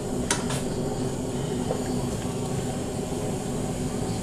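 Steady low roar of a stove burner under a boiling pot of goat stew. A wooden spoon gives two light knocks against the aluminium pot shortly after the start as the stew is stirred.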